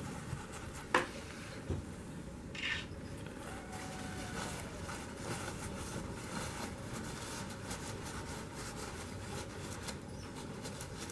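Paper towel rubbing and rustling over the metal of an H&R Model 732 revolver as it is wiped down with alcohol to dry it before bluing. A sharp knock comes about a second in, and a short rustle of the towel a little later.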